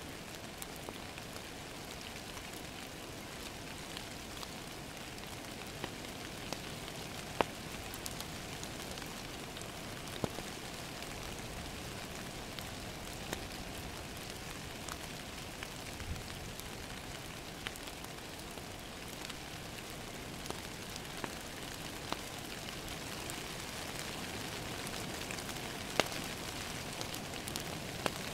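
Steady rain pattering on a window, with a wood fire crackling and popping now and then; the sharpest pops come about a quarter of the way in and near the end.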